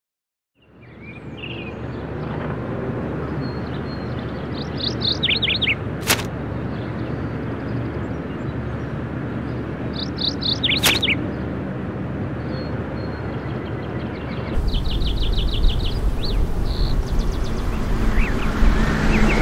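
Outdoor ambience with birds chirping over a steady noise bed that fades in: short runs of quick falling chirps about five and ten seconds in, each followed by a sharp click. About fifteen seconds in the ambience changes, with a low rumble added, and a fast chirping trill.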